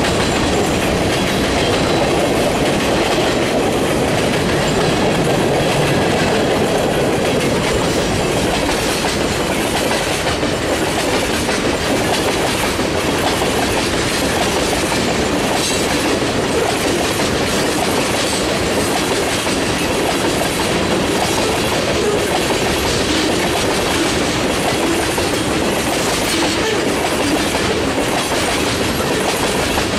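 Freight train of boxcars and tank cars rolling past close by: a steady rumble and clatter of steel wheels on the rails, with irregular clicks as the cars pass.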